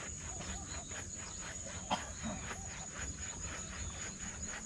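Steady high-pitched drone of insects with rapid pulsing chirps, and one sharp click about two seconds in.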